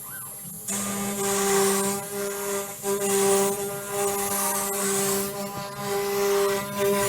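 CNC router spindle running with a steady whine while its up-cut bit cuts into wood, with a rough, uneven cutting noise over the whine. The cutting drops off for about the first half second, then picks back up.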